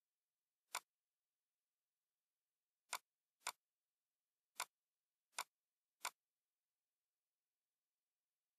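Six sharp computer mouse clicks, irregularly spaced, over a silent background.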